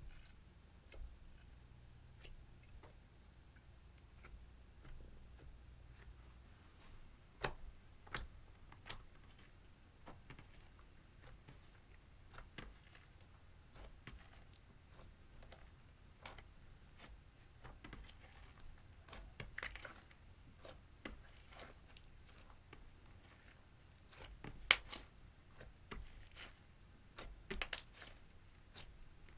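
Clear slime being kneaded and stretched by hand, giving soft, irregular sticky clicks and crackles, with a few sharper pops about seven and a half seconds in and again near the end.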